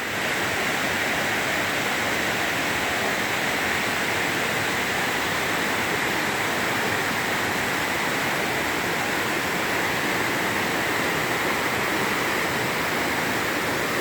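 Steady rushing of a waterfall's falling water, an even hiss with no breaks.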